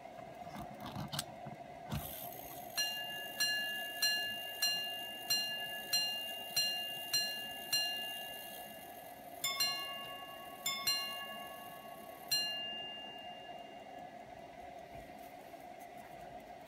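J.R. Losada half-quarter repeater pocket watch striking the time after a few clicks of its repeat slide. It sounds nine single strikes for the hours, then two paired ding-dong strikes for the quarters, then one more single strike for the half quarter, telling roughly twenty to ten.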